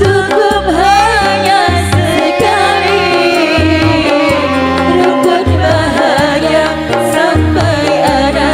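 Live modern qasidah (kasidah) band music: a woman singing lead into a microphone over keyboards, violin and hand drums, with a regular bass beat.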